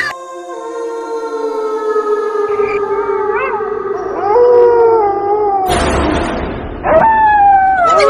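Long drawn-out canine howling, the pitch sliding slowly down. A short rush of noise breaks in about six seconds in, then another howl begins.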